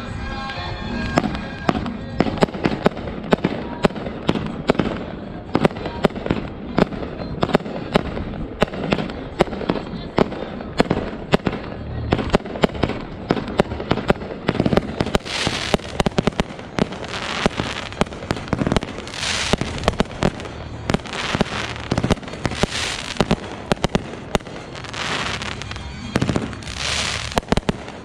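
Aerial fireworks display going off: a rapid run of sharp bangs, several a second, and from about halfway on, louder hissing bursts lasting a second or two each among the bangs.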